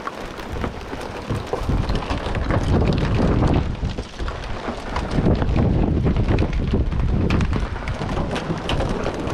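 Wind gusting against the microphone, swelling and easing, with rain falling in small ticks.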